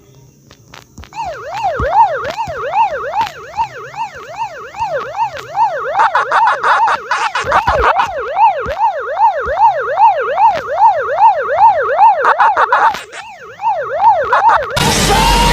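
A siren-like wail with a fast up-and-down warble, about two sweeps a second, runs for about thirteen seconds. Near the end it cuts off into a sudden loud burst of noise.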